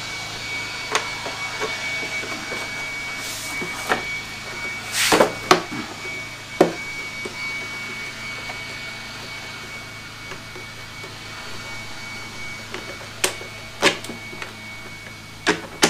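Hard plastic leaf-blower tube and housing clicking and knocking as they are handled and fitted together: scattered sharp knocks, loudest in a cluster about five seconds in and again near the end, over a steady background hum.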